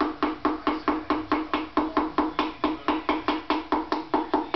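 Rapid, even taps of a hammer handle on a piston crown, about five a second, driving the piston through a ring compressor into a cylinder of a Datsun Z24 engine block; it goes in without resistance and the tapping stops suddenly near the end.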